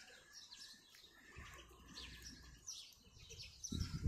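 Small birds chirping in the background, a steady run of short, quick calls; a low rumble comes in near the end.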